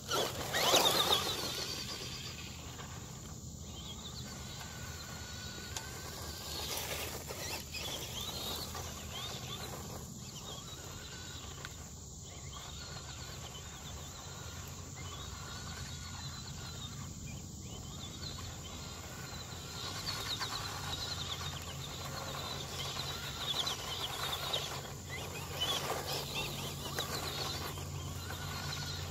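LaTrax Prerunner RC truck's small electric motor whining up and down in pitch as the truck accelerates, slows and turns across dirt and grass, loudest about a second in.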